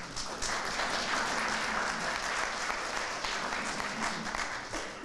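Small indoor audience applauding: a dense patter of many hands clapping that starts suddenly and dies away near the end.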